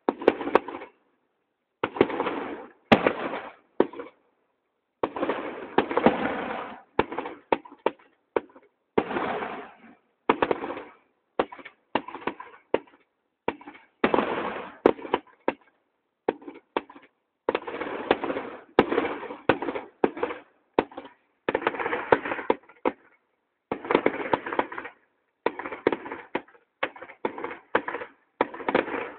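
Aerial fireworks shells bursting in an irregular series of bangs, sometimes one or two a second and sometimes in quick clusters, each trailing off in an echo. Heard through a phone's microphone, which cuts off the high end.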